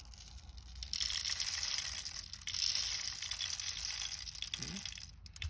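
Steel BBs being poured into a BB gun's loading port: a dense rattle of many small pellets, starting about a second in and dying away near the end.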